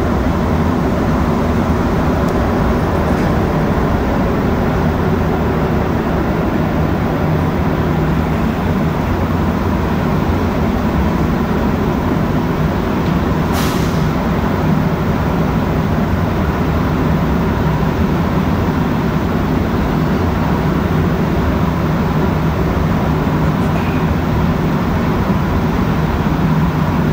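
AZUR (MPM-10) rubber-tyred metro train running at speed through a tunnel, heard from inside the car as a loud, steady rumble with a brief sharp click about fourteen seconds in.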